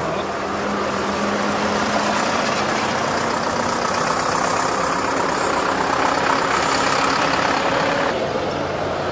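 Diesel farm tractors driving slowly past one after another, their engines running at low revs with a steady hum. The sound grows a little louder as a tractor nears, then eases near the end.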